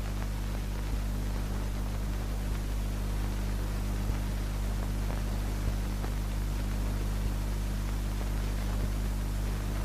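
Steady hiss with a low electrical hum underneath: the background noise of an old film soundtrack, with no narration or music.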